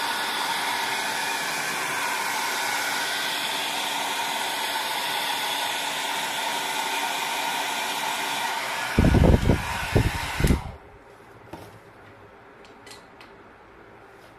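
A small electric motor whirs steadily with an airy hiss, like a blower running. It cuts off abruptly about ten and a half seconds in, right after several loud, deep thumps. After that there are only a few faint clicks.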